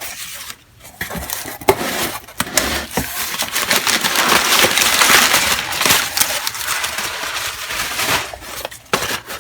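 A mailed box being opened and unpacked by hand: crackling, crinkling packing material and handling noise with scattered clicks, busiest in the middle.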